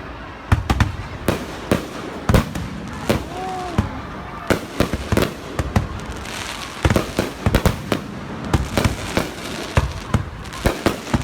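Fireworks going off: many sharp bangs and pops at irregular intervals, sometimes several close together.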